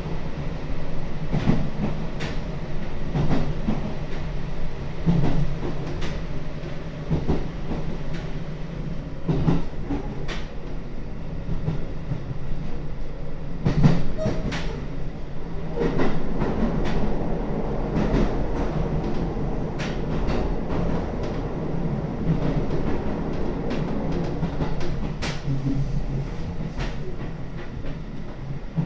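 JR Hokkaido Airport rapid electric train running, heard from inside the carriage: a steady low hum, with the wheels clicking over rail joints every second or few.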